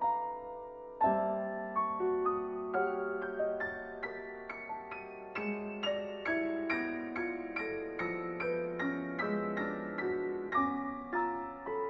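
Solo piano playing a modern classical piece. A chord is struck about a second in, followed by a stream of single notes at about two or three a second, each left ringing under the next.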